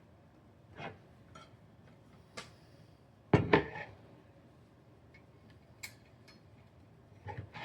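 Metal and acrylic parts of a DeskPi RackMate T1 desktop server rack being handled during assembly: scattered clicks and clinks, with two sharp knocks about three and a half seconds in.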